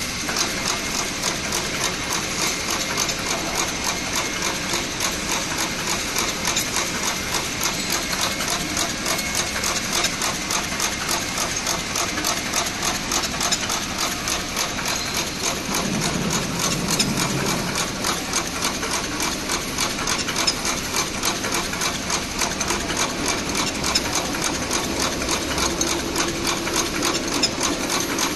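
Automatic candle wick cutting machine running, its belt-driven cutter chopping wick into short lengths with a fast, even mechanical clatter.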